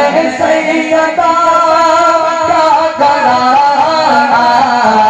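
A man singing a naat, an Urdu devotional song, into a hand-held microphone, drawing out long notes that waver and bend.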